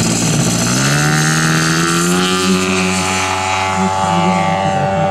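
A motor spinning up: its pitch rises over about a second, then it runs steadily at a constant pitch.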